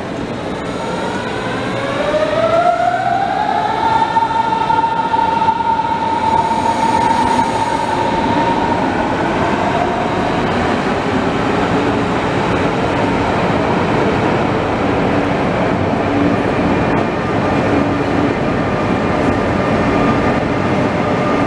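Electric double-deck regional train pulling away. A whine from its traction drive rises in pitch over the first few seconds, holds steady, then fades into the rolling rumble and rattle of the coaches.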